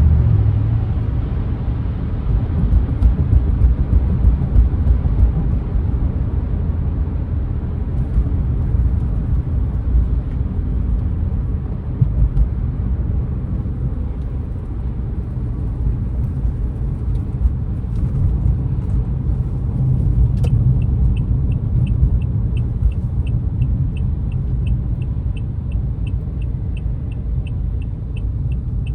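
Low road and engine rumble inside a car's cabin while driving in traffic. About two-thirds of the way through, a click starts a steady turn-signal ticking, about three ticks a second.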